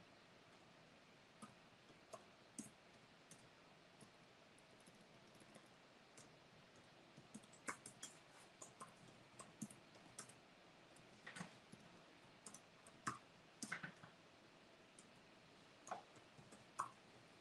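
Faint, irregular clicks of typing on a keyboard, sparse at first and coming in quicker runs from about seven seconds in, over near-silent room tone.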